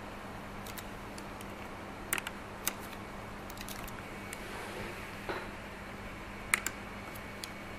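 Computer keyboard keys and mouse clicks: a scattering of sharp, irregular clicks over a faint steady hum, with the loudest pair about six and a half seconds in.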